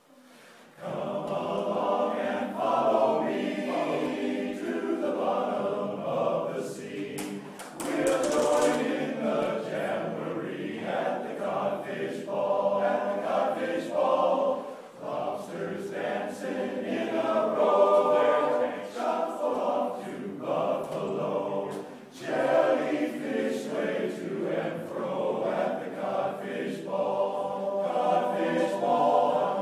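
Men's barbershop chorus singing a cappella in four-part harmony, coming in about a second in.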